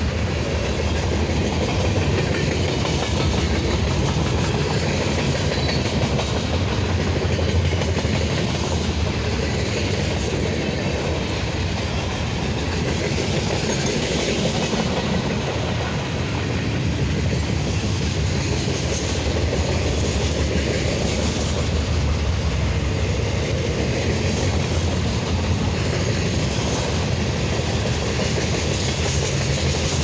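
Freight train boxcars rolling past at close range: a steady rumble of steel wheels on the rails, with no horn sounding.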